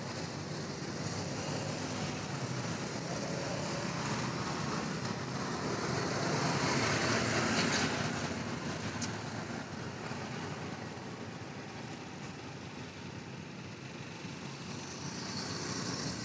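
Steady road traffic noise, swelling as a vehicle passes about halfway through and then fading again.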